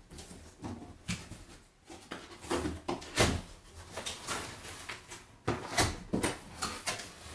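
Cardboard box being opened by hand: the outer sleeve slid off and the inner box's flaps lifted, with irregular scrapes, rustles and light knocks of card on card.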